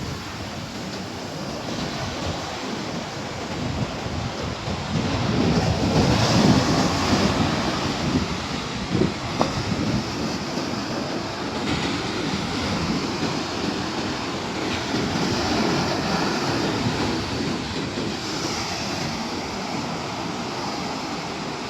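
Sea waves washing onto a beach, with wind buffeting the microphone; the surf swells louder about six seconds in.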